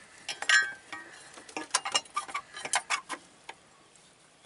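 Irregular metal clicks and knocks as a metal battery hold-down bracket is worked into place by hand over a new battery in a Smart Car. The sharpest knock comes about half a second in, then the clicks thin out near the end.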